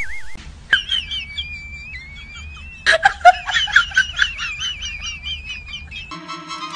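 High bird-like whistling and warbling chirps over a held whistling tone. It gets busier and louder about three seconds in and stops shortly before the end.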